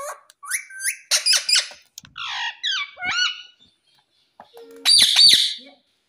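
Indian ringneck parakeet calling: a run of short chattering calls gliding up and down in pitch, then a loud harsh squawk about five seconds in.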